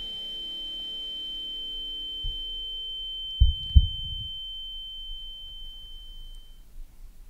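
Sound-design effect of a steady high-pitched ringing tone over a low hum, with a heavy double heartbeat thump about three and a half seconds in. The hum drops out with the heartbeat, and the ringing cuts off suddenly near the end.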